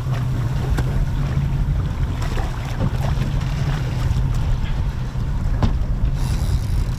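Boat engine idling steadily in neutral, a low hum, with wind on the microphone.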